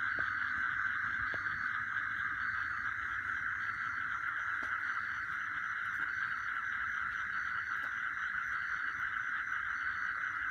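A night chorus of insects: a dense, steady trilling, with a short high chirp repeating about once a second.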